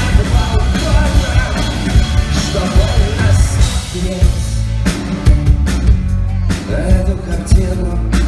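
Rock band playing live: acoustic guitar, electric bass and drum kit, with singing.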